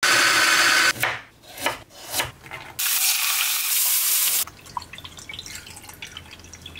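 A small battery-powered electric garlic chopper whirs for about a second as it minces garlic. A few short scraping knocks follow, then about a second and a half of loud sizzling from diced carrot and garlic frying in a pan, and a few small clicks over a low hum near the end.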